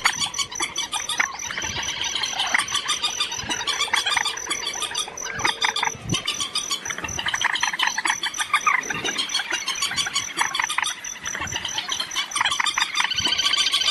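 Recorded bird calls of the kind played as a lure for night net trapping: many quick, overlapping chirping calls repeat continuously, with a fast, even high ticking running underneath.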